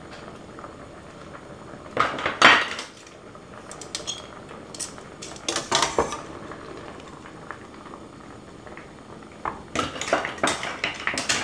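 Metal tongs handling cooked conch shells, clattering shell against a stainless steel pot and a ceramic plate as they are lifted out and set down. The clatter comes in three bunches: about two seconds in, around six seconds, and again near the end.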